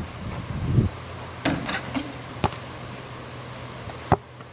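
A basketball knocking three times, short sharp thuds about a second apart. The last one comes as a shot strikes the hoop.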